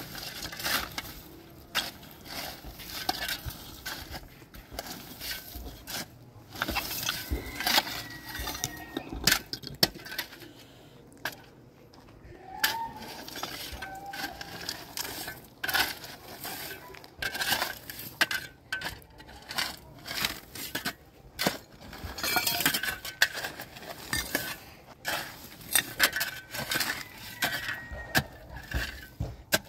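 Irregular clinks and knocks of small hard objects being handled, many sharp strikes coming at uneven intervals.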